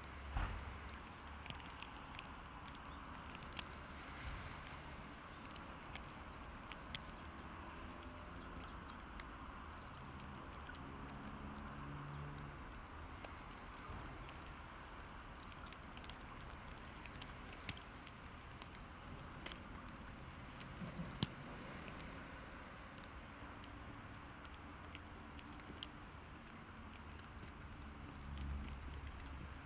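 Quiet outdoor ambience in falling wet snow: a steady soft hiss with scattered light ticks and patter. A faint low hum, like distant machinery, comes and goes a few times.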